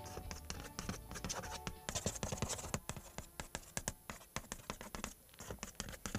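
Chalk scratching and tapping on a chalkboard in many quick strokes, as a logo is drawn, with faint music underneath.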